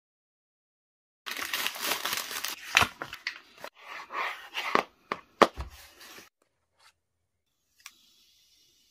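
Packaging of a Samsung Galaxy S22+ being torn and crinkled during unboxing, starting about a second in, with a few sharp taps and a low thump about five seconds in. A faint tick follows near the end.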